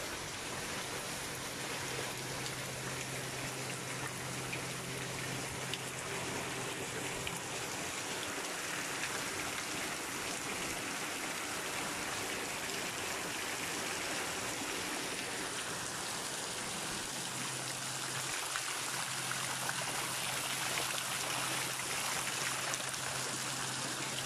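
Heavy rain pouring steadily, splashing into standing water on the flooded ground.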